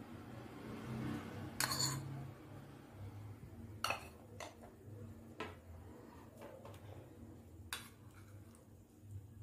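Steel spoon clinking and scraping against a small white serving bowl and a glass salad bowl as chopped ingredients are scraped in: a handful of sharp clinks, the loudest about two and four seconds in.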